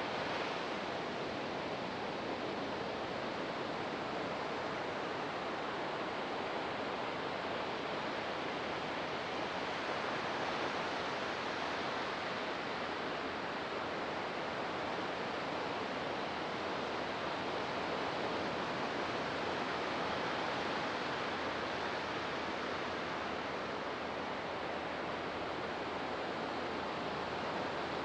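Ocean surf: waves breaking and washing in as a steady rush that swells gently a couple of times.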